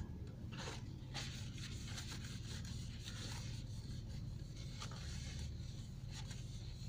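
Paper towel rubbing and wiping over a dish, a soft scattered scraping over a low steady hum.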